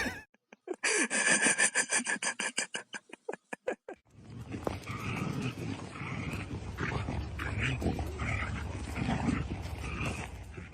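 A dog vocalising: a rapid, rhythmic run of sounds for about three seconds that slows and fades, followed by a quieter, rougher stretch with faint tones.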